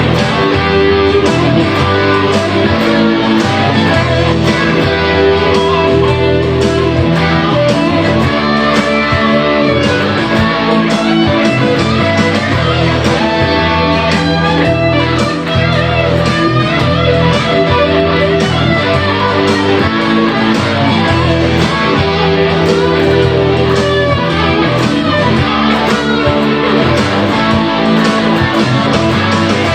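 Electric guitar played through a Yamaha THR30II amplifier, sounding loud and without a break, to show the amp's tone.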